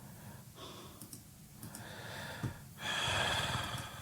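A person breathing out in a long, breathy sigh a little before three seconds in, after faint quieter breaths.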